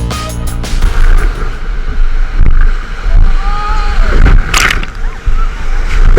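Whitewater rushing and sloshing around a river raft, with a heavy low rumble and uneven loud surges, and a sharp splash about four and a half seconds in. Electronic music fades out in the first second.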